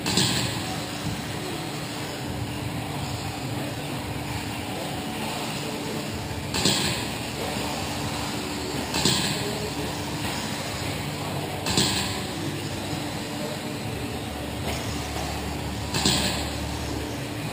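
2wd electric RC buggies with 17.5-turn brushless motors racing on an indoor dirt track: a steady hum and hiss of motors and tyres, with several brief louder bursts scattered through it.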